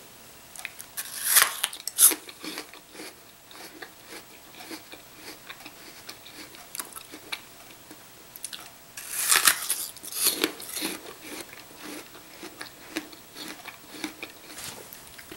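Biting into a raw apple half and chewing it: two loud crunching bites, about a second and a half in and again about nine and a half seconds in, with softer chewing crunches between them.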